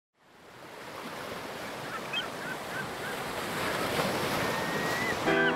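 Ocean surf washing, fading in from silence, with seagulls giving several short calls; music comes in near the end.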